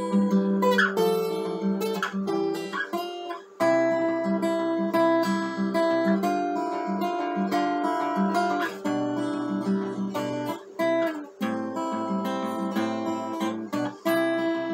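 Acoustic guitar played solo: a run of chords and single notes that keeps changing, with brief breaks in the playing about three and a half and eleven seconds in.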